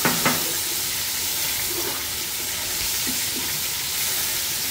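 Sliced mushrooms and garlic frying in oil in a non-stick pan: a steady sizzling hiss as they are stirred with a silicone spatula, with a couple of light scrapes at the very start.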